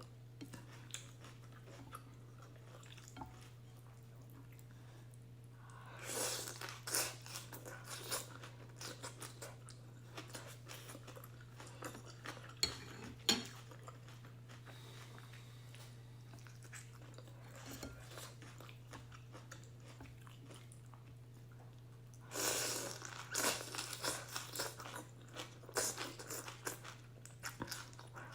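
Close-up eating of beef and egg ramen noodles: chewing and mouth noises in bursts, with a few sharp clicks of utensils against the bowl, over a steady low hum.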